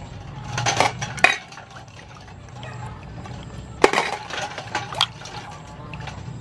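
Sea snails being washed by hand in a stainless steel bowl of water: water sloshing and splashing in two bouts, with the shells clinking sharply about a second in and just before four seconds.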